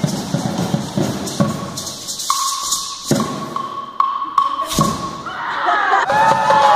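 Live percussion rehearsal music with rapid drum and hand-percussion hits, then a steady high note held for a few seconds with a few sharp hits over it. Several voices call out near the end.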